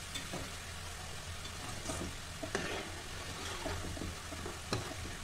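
Namak pare (strips of maida dough) deep-frying in hot oil with a steady sizzle, partway through frying before they turn golden. A slotted spoon stirs them and clicks against the pan a few times, sharpest about two and a half and nearly five seconds in.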